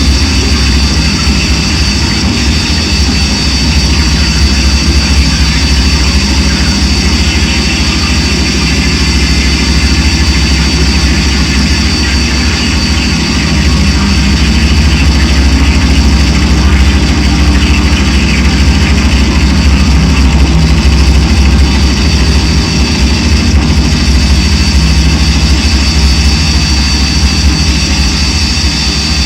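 Loud electronic drone noise music: a heavy, steady low rumble under held tones and a thick wash of hiss with a sustained high whine, unbroken throughout.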